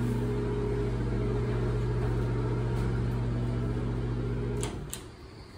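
Bathroom exhaust fan humming steadily, then cutting off abruptly about four and a half seconds in. Two light clicks of the wall toggle switches follow.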